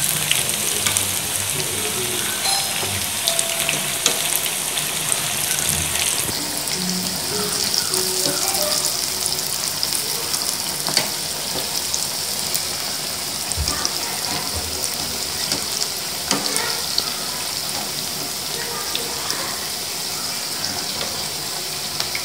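Masala vadai (chana dal fritters) deep-frying in hot oil: a steady sizzling hiss, with a few light clicks of a wire skimmer against the pan.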